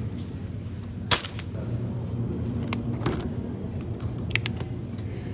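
Plastic food packaging clicking and crackling as it is handled, a few sharp clicks spread over several seconds, over a steady low hum of supermarket refrigerated display cases.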